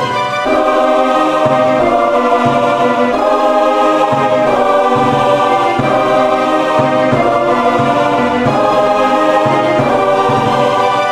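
Background music of held chords, sung by a choir-like ensemble, changing every second or so.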